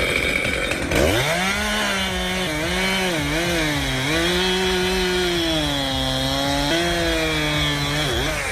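Chainsaw running under load while cutting into a tree trunk. It revs up about a second in, then holds a high, steady note that dips and recovers repeatedly as the chain bites into the wood.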